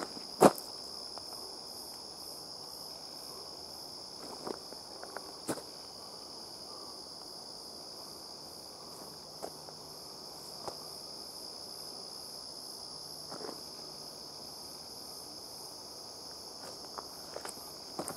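Steady, high-pitched chorus of insects such as crickets, with a few scattered footsteps on a dirt trail, the loudest just after the start.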